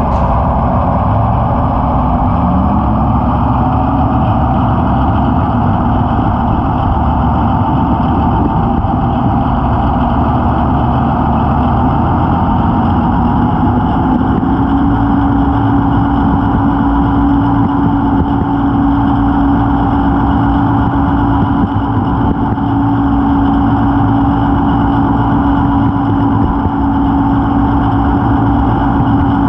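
Gauge 0 model locomotive starting off and running along the track. Its running sound rises in pitch over the first few seconds as it picks up speed, holds steady, then steps up again about halfway through.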